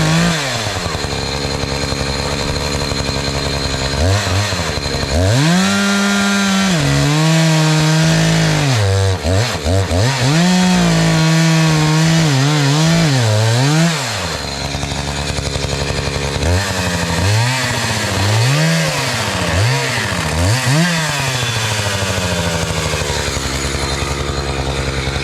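Two-stroke gasoline chainsaw with a freshly sharpened chain, running and revving as it cuts into a wood log. It is held at high speed for long stretches from about five to fourteen seconds in, then gives a quick series of short throttle blips before settling to a lower, steady running speed near the end.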